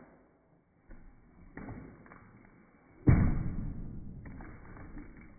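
Full plastic water bottles knocking and thudding while being juggled and dropped. The loudest thud comes about three seconds in, followed by a low rumble that fades. The sound is dull and muffled.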